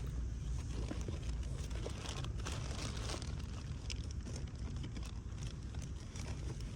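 Steady low rumble with scattered light clicks and crinkling sounds.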